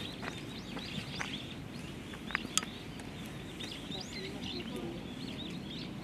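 Small birds chirping and twittering in the background over a low, steady rumble of distant noise, with two sharp clicks about two and a half seconds in.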